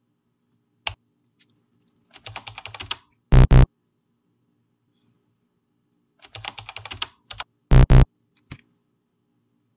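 A click, then a quick burst of computer keyboard typing followed by two short, loud error buzzes: a password typed in and rejected. The typing and the double buzz come twice.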